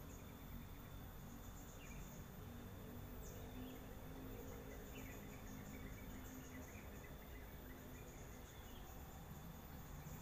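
Faint swamp ambience of insects trilling in a high, pulsing, steady drone, with a few scattered faint chirps and a short falling whistle about three seconds in, over a low rumble.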